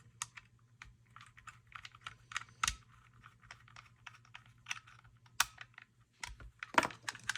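Irregular small clicks and taps of hands handling the parts of an airsoft AEG's lower receiver, with one louder knock near the end.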